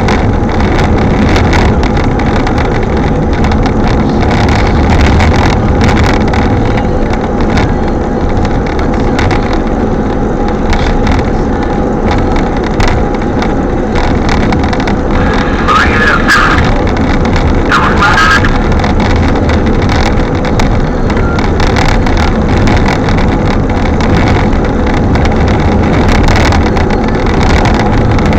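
Strong wind buffeting the microphone: a loud, steady low rumble with a constant hum underneath. Two short chirps come a little past the middle.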